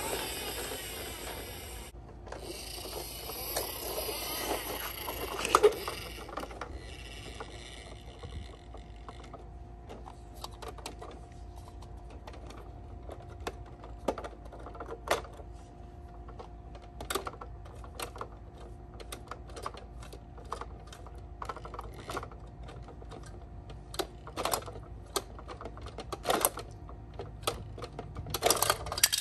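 Plastic toy garbage truck lift and dump mechanisms being worked by hand: a dense run of whirring, ratchet-like clicking for the first several seconds, then scattered plastic clicks and knocks.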